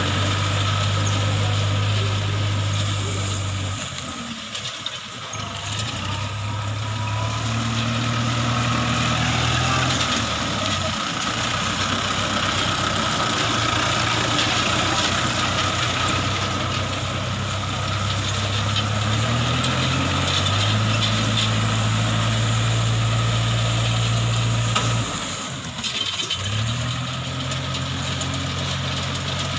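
Engine running the round paddy-straw baler, its low note dropping away and coming back several times as the revs change, over a steady noise of the machine working.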